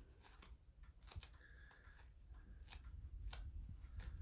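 Faint, scattered light clicks and taps of hands handling the small internal parts of an opened LCD TV, a few a second at irregular spacing.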